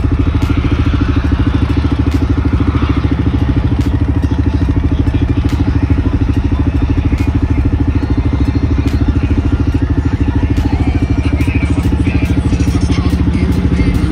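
A nearby off-road vehicle's engine idling steadily with a fast, even firing pulse. Another machine is faintly heard running in the last few seconds.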